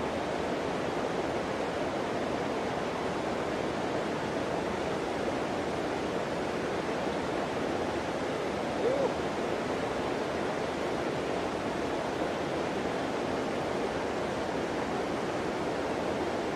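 Steady rushing of river water, even and unbroken, with one brief faint chirp about nine seconds in.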